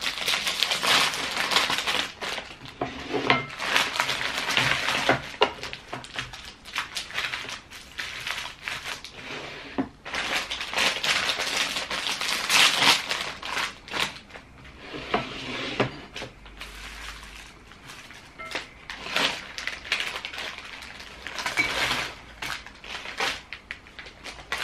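Plastic snack bags and wrappers crinkling and rustling as they are handled and opened, with snacks rattling into a ceramic bowl and onto a plate. The sound comes in several bursts of a few seconds each.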